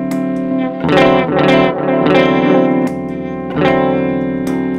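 Electric guitar chords strummed through a Pedaltank Time Capsule 2 analog delay pedal, a new chord struck about every three-quarters of a second. The delay is switched in and out to match its engaged volume to the bypassed tone with the pedal's input level control.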